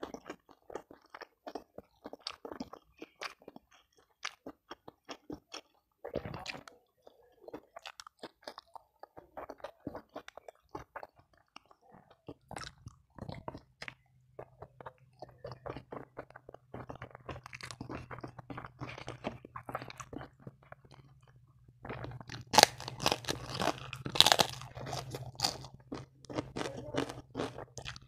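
Close-miked chewing of a spicy rice meal eaten by hand, a steady run of small crunches and mouth clicks. From a few seconds before the end, much louder crunching as he bites into a krupuk cracker. A low steady hum joins about halfway.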